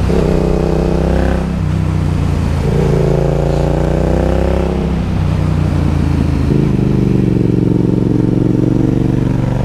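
Yamaha MT-07's parallel-twin engine pulling the bike up a winding road. The revs climb twice in the first few seconds, then settle to a steady lower note for the rest.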